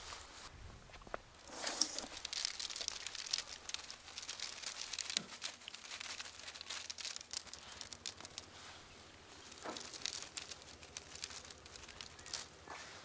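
Handfuls of fresh tea leaves, withering in the sun, rustling and crinkling as they are scooped up by hand, tossed and dropped into a round bamboo basket.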